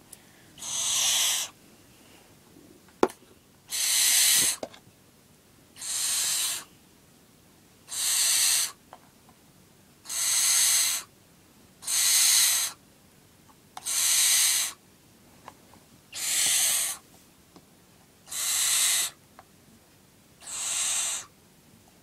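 Nine-week-old barn owl chick making hissing food-begging calls during feeding, one breathy call about a second long roughly every two seconds. A sharp click about three seconds in.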